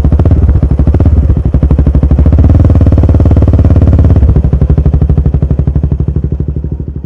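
Royal Enfield Himalayan 450's single-cylinder engine running through a ZARD aftermarket exhaust with the baffle removed, a loud rapid pulsing exhaust note while riding. The note fades out near the end.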